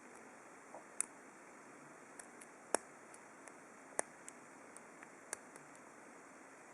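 Lock picking in a small brass Abus T84 padlock: a diamond pick working the pin tumblers under light tension, making scattered, irregular metal clicks, some faint and a few sharper, against a quiet hiss.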